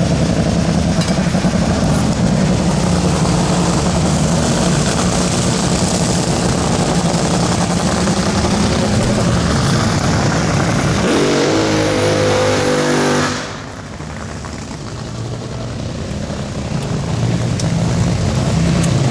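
Loud, steady racing-engine noise from drag cars running at the track. About two-thirds through an engine revs in steps, then the noise drops suddenly and slowly builds back up.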